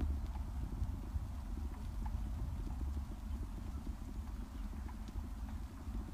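Steady low wind rumble with dense irregular knocking and rattling from the moving camera as it travels along a bumpy brick-paved path.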